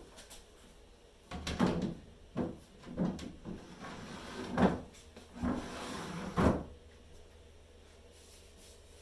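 Drawers of an old wooden dresser sliding and knocking shut, about five times in a row over several seconds.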